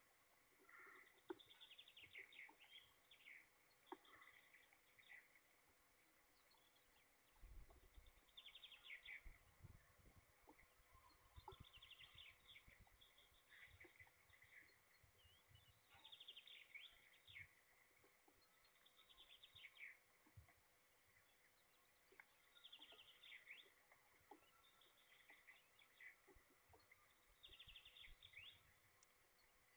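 A distant songbird singing short phrases that fall in pitch, repeated every three to four seconds, faint against rain, with scattered low knocks from falling drops.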